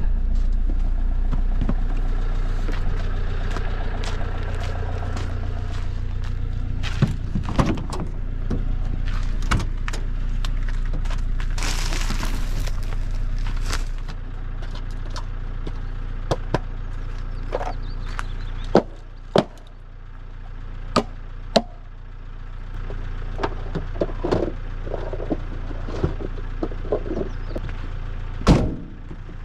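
A vehicle engine runs with a steady low hum that drops away partway through. Scattered knocks and clicks run throughout, with a short hiss about twelve seconds in.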